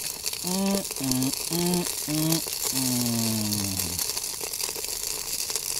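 Tinned meat pie sizzling in its tin inside a billy can over a wood campfire: a steady hiss with fine crackles.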